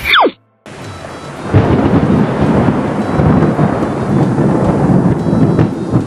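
A quick swoosh falling sharply in pitch, then, after a moment's silence, a long rumble of thunder with a rain-like hiss. The thunder swells about a second and a half in and keeps rolling in uneven surges.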